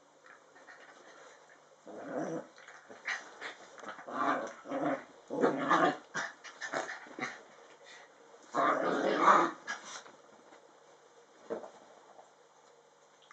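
Two small dogs growling at each other while play-fighting, in a run of short rough growls, the longest lasting about a second, then a single short one near the end.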